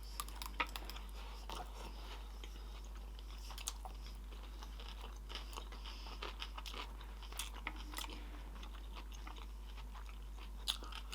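Close-miked chewing of crunchy sushi rolls: irregular crisp crackles and crunches mixed with wet chewing.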